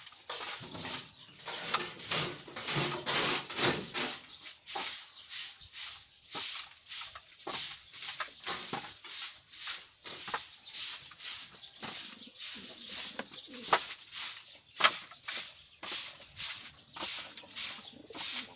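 Soft grass broom (walis tambo) sweeping dirt across a loft floor toward a dustpan, in quick regular strokes about two a second.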